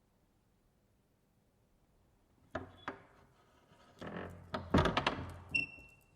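After a quiet start, a run of knocks and thuds begins about two and a half seconds in, like wooden objects being handled and set down in a room. Near the end comes one short metallic ring.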